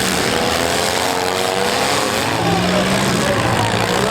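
Several compact demolition-derby cars' engines running together, their pitches rising and falling as the drivers rev, over a steady noisy rumble.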